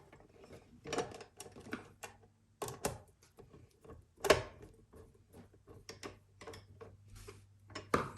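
Screws and small metal parts of a bicycle rear carrier being handled and fitted by hand: irregular light clicks and knocks, the sharpest about four seconds in and another near the end.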